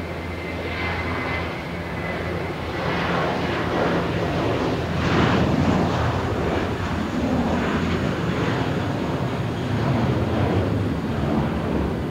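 Jet airliner engines at takeoff thrust: a rough, crackling roar that swells about three seconds in and stays loud.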